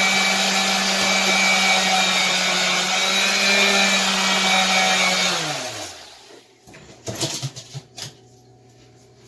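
Ryobi orbital sander running steadily against a wooden axe handle, then switched off about five seconds in, its hum falling in pitch as it spins down. A few light knocks follow near the end.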